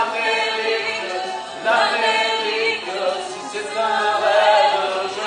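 Two women and a man singing together in harmony into microphones, amplified over a sound system.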